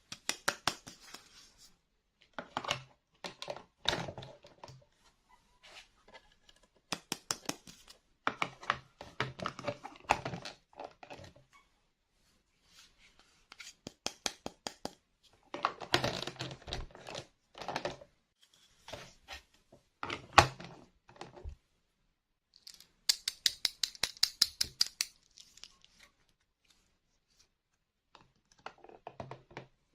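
Small plastic toy pieces and packaging being handled in bursts of clicks, clacks and rustling, with pauses between. A fast run of sharp clicks comes about three quarters of the way through.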